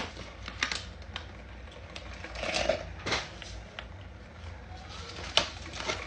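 Scattered sharp clicks and light knocks as the parts of an iced coffee maker are handled, the loudest one near the end.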